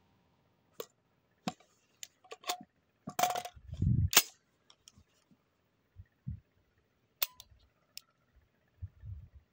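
Scattered metallic clicks and clacks of a 12-gauge shotgun being handled, loudest in a pair about three and four seconds in, mixed with a few dull thumps.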